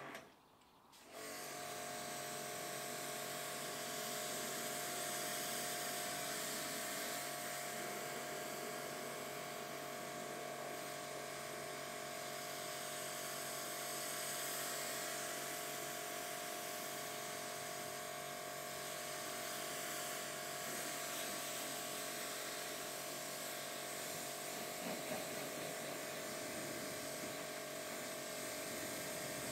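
BigBoi WashR electric pressure washer running and spraying, a steady motor-and-pump whine and hum under the hiss of the high-pressure water jet, starting about a second in when the trigger is pulled.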